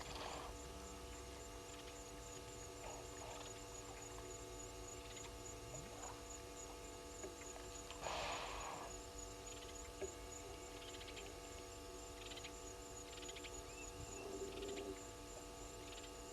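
Steady electrical mains hum, with faint short chirps, a brief rush of noise about eight seconds in, and a low sound near the end.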